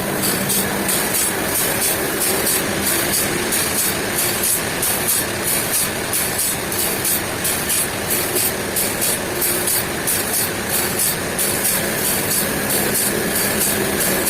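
A heavy engine running steadily, with a regular high-pitched rattle about three times a second.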